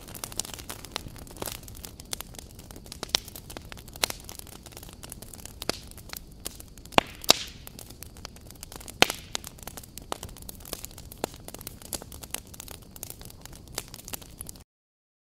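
Small wood fire crackling in a miniature wood stove: irregular sharp pops and snaps over a steady hiss, the loudest pops about two-thirds of the way through. The sound cuts off suddenly near the end.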